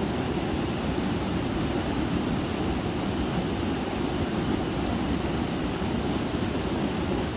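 Small mountain stream rushing over rocks and a little waterfall, a steady unbroken rush of water.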